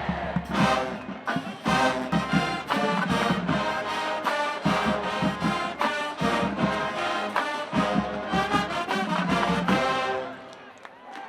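College marching band playing a loud, punchy brass fanfare with drums in short accented hits. It stops about ten seconds in.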